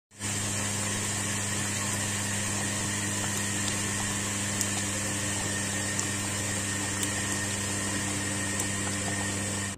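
A wok of thick lomi noodle soup simmering, with a few soft pops, over a steady hum and faint hiss.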